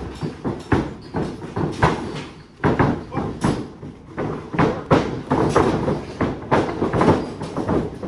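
Wrestlers' feet pounding and bodies dropping onto a wrestling ring's mat in a running drill: a rapid, uneven string of loud thuds, with a brief lull about two and a half seconds in.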